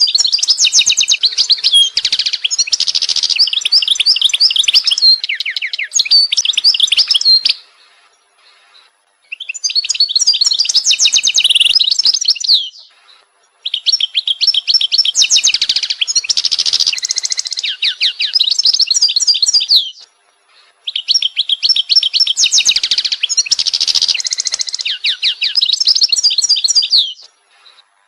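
A songbird singing long phrases of rapid, high chirps and trills, four phrases of several seconds each with short pauses between them.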